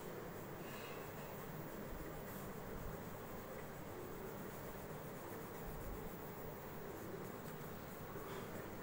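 Pencil scratching faintly on notebook paper as it draws lines, over a steady background hiss.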